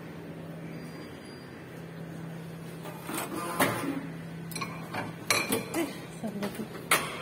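Station fare gate being passed through: a series of sharp metallic knocks and clicks starting about three seconds in, the loudest two near the middle and the end, over a steady low hum.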